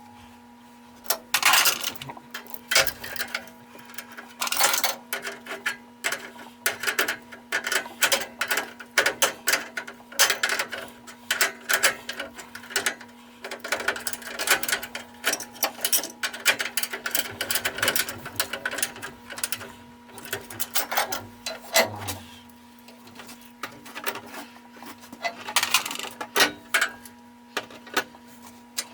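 Metal hand tools clicking and clanking irregularly in quick runs, over a steady low hum.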